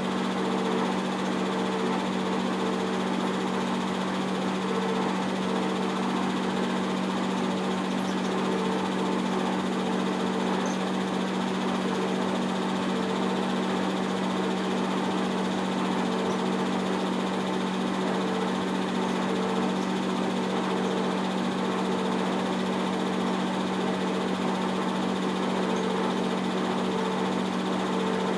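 Old 8 mm film projector running: a steady hum of its motor and cooling fan with the whir of the film mechanism.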